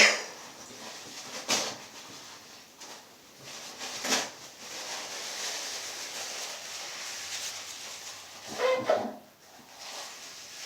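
A man in a sneezing fit: the tail of a loud sneeze right at the start, then two short sharp sniffs, a hissing breath lasting a few seconds, and a short voiced gasp about nine seconds in.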